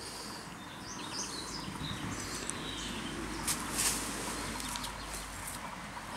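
Gloved hands pressing soil and compost around zucchini seedlings, with rustling and crackling of dry leaves, loudest just past the middle. A few short bird chirps about a second in over a steady outdoor hiss.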